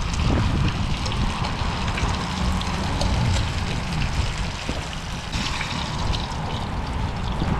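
Hot cooking oil sizzling and crackling in a frying pan, with a steady low rumble underneath.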